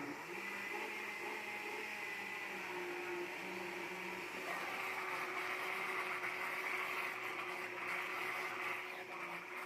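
Countertop blender motor running steadily, mixing a cake batter of milk, eggs, sugar, margarine and flour, its pitch wavering slightly.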